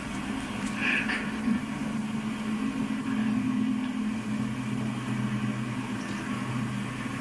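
A steady, low engine-like hum, with a lower tone joining about four seconds in and a brief high chirp about a second in.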